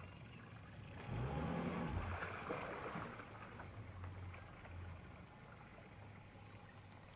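Outboard motor running slowly with a low steady hum, and water rushing along the hull, louder from about one to three seconds in.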